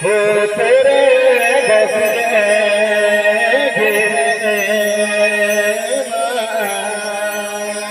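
A voice singing a wavering, ornamented melody over steady held keyboard notes and a low drone; the voice fades out about seven seconds in, leaving the keyboard.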